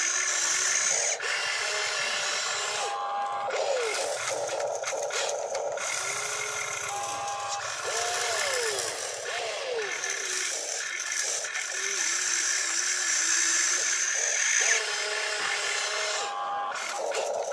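Toy RC excavator's small electric gear motors whirring and rattling as the arm raises and the upper body swings, mixed with short pitched sounds that rise and fall.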